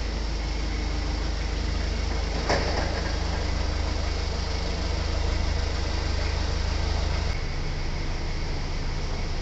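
Forklift engine running steadily with a low hum, and one sharp knock about two and a half seconds in. A different steady low hum takes over near the end.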